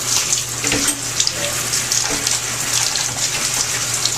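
Shower spray running steadily, water hissing and spattering in a small shower stall, with a low steady hum beneath it.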